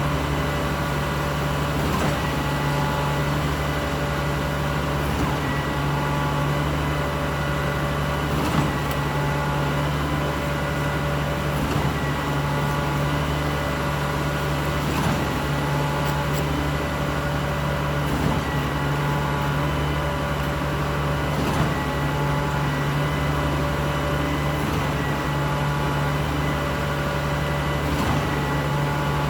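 Steady mechanical hum of a running engine or machine, with a few light knocks here and there.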